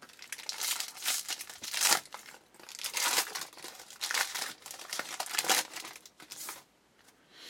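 Shiny foil wrapper of a pack of baseball cards crinkling and tearing as it is pulled open by hand, in a series of quick rustles that stop near the end.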